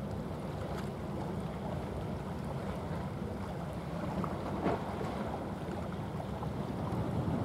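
Wind rumbling on the microphone over a steady low background rumble, with one short click about two-thirds of the way through.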